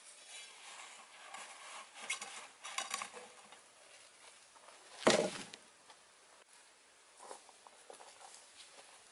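Crinkly rustling of a cloth handled around a freshly baked loaf and a black cooking pot as the bread is lifted out, with small knocks, followed by a single dull thud about five seconds in.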